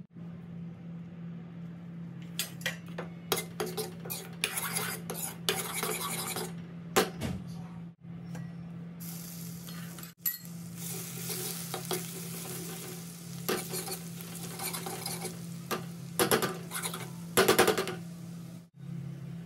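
Spices and ginger-garlic paste sizzling in hot oil in a kadhai, with a steel ladle stirring and scraping against the pan in several spells of quick strokes. A steady low hum runs underneath.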